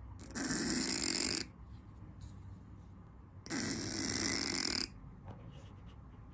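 A sleeping Scottish Fold cat snoring with its mouth open: two long, noisy snores, each about a second, about three seconds apart.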